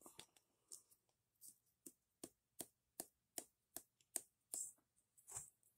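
Faint, evenly spaced light clicks, about two or three a second, from a spice jar and plastic measuring spoon being tapped and shaken as celery salt is measured out over a metal mixing bowl.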